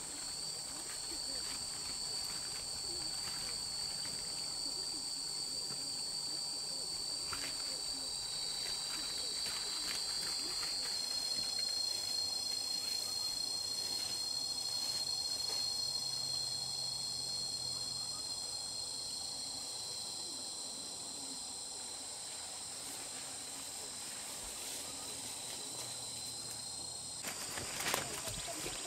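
Steady, high-pitched insect chorus, with faint scattered rustles and a brief knock near the end.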